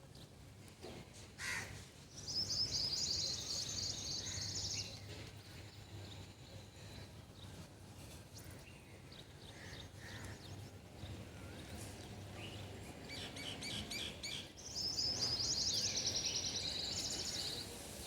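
A bird calling in two bouts of a high, rapid trill, each lasting about three seconds: one a couple of seconds in and one near the end, with a shorter stuttering burst just before the second.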